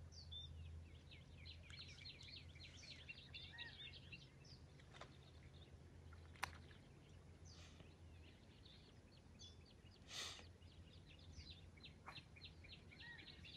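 Faint outdoor ambience of birds chirping: many short, quick calls repeating throughout. A low hum underneath fades out about two-thirds of the way through, and a single sharp click comes about halfway.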